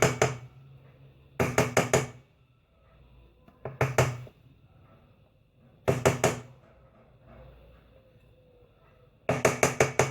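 Short bursts of rapid knocking or clicking, several sharp strokes in each, coming about every two seconds, with a longer run near the end.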